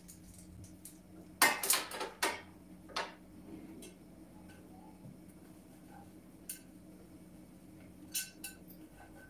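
Glass microwave turntable plate and kitchenware clattering as they are handled: a quick run of clinks and knocks about a second and a half in, another knock a second later, and a short glass clink just past eight seconds.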